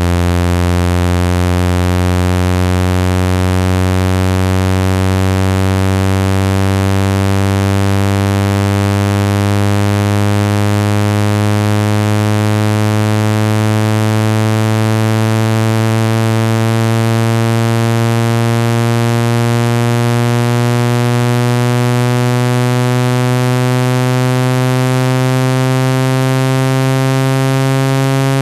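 Synthetic low buzzing tone, rich in overtones, held loud and steady while its pitch glides slowly upward: a speaker water-eject tone played to vibrate water out of a phone speaker.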